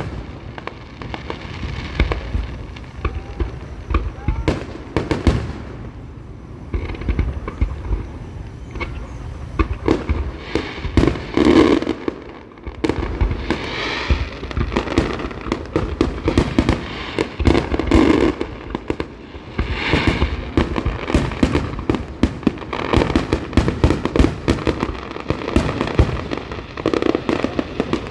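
Fireworks display going off in rapid, dense volleys of bangs and crackles, with people's voices heard among them.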